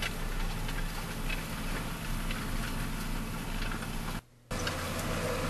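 John Deere 7430 tractor's six-cylinder diesel running steadily under load, heard inside the cab while it pulls a disc harrow, with faint light ticks. The sound drops out briefly about four seconds in, then the engine carries on.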